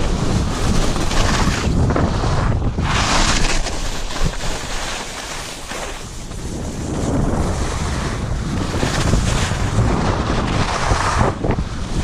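Wind buffeting a body-worn camera's microphone during a fast downhill run on a ski slope, a steady low rumble with the hiss of edges scraping packed snow. The hiss is loudest on turns about three seconds in and again near the end, and the noise eases briefly in the middle.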